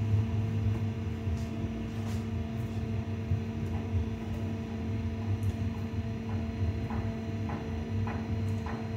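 A steady low hum runs throughout. Light clicks of cutlery against a ceramic plate, from boiled yam being peeled with a knife and fork, come mostly in the second half.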